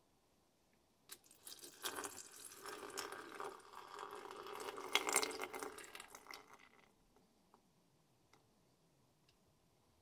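Liquid poured into a glass beaker over a heap of small metal connector pins, splashing unevenly, starting about a second in and stopping near seven seconds.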